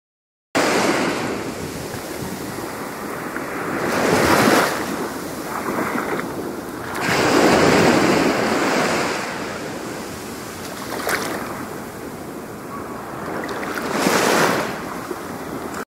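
Small waves washing up a sandy beach: a steady surf hiss that swells as each wave runs in, three times.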